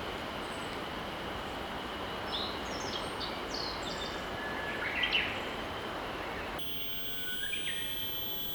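Mountain river flowing with a steady rushing murmur while small birds chirp in short, rapid calls. About two-thirds of the way in, the rushing abruptly turns quieter, a steady high tone sets in, and a few more chirps follow.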